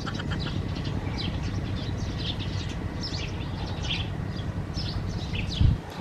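Small birds chirping over and over, high and short, above a steady low rumble. A dull thump, the loudest sound, comes near the end.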